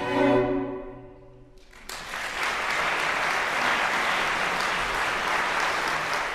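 A cello ensemble's final sustained chord fades away over about a second and a half. Then audience applause starts suddenly about two seconds in and goes on steadily.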